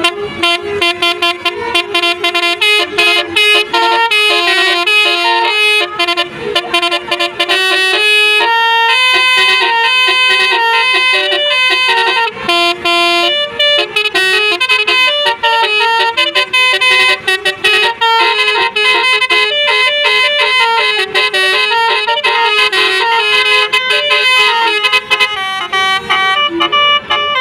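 Indonesian bus 'telolet' musical horn playing a long run of quick melodic tunes: many short notes stepping up and down in pitch, with a few brief breaks.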